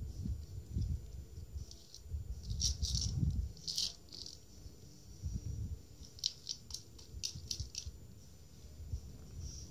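Dry kibble rattling inside a plastic wobbler foraging toy as a cat nudges and tips it, with dull knocks of the toy rocking on carpet. The rattling comes in bursts: a cluster about three to four seconds in, then a run of about six quick clicks a little past the middle.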